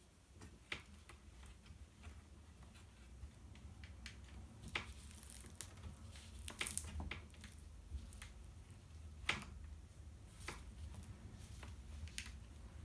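Hands smoothing and handling stiff cross-stitch fabric on a wooden scroll frame: scattered soft rustles and light taps, a few sharper ones near the middle, over a steady low hum.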